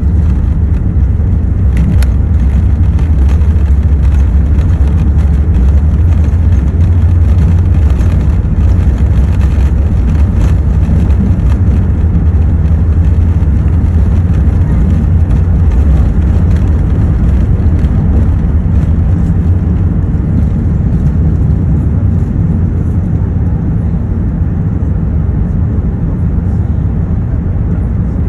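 Cabin sound of an Airbus A380 taking off: its four Rolls-Royce Trent 900 engines at takeoff thrust and the runway roll make a loud, steady low rumble, easing slightly near the end as it lifts off.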